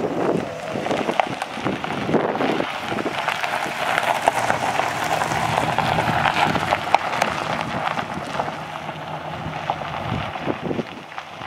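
Wind buffeting the microphone, crackling over a low steady engine hum from a 2005 Chevrolet Silverado 1500's 4.3-litre V6 at idle. The wind eases off a little near the end.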